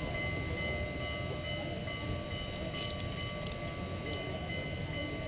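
Distant steam-hauled train approaching, led by Union Pacific 4-8-4 steam locomotive #844: a steady low rumble.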